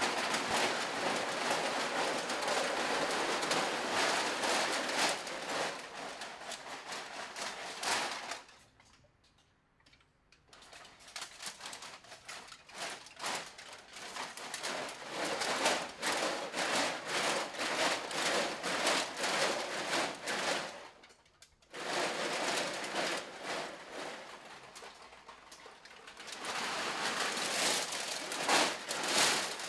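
Full-body costumes covered in hundreds of metal cans rattling and clattering as the performers move, a dense jangle of many small metal knocks. It dies down for about two seconds a third of the way in and breaks off briefly about two-thirds of the way through.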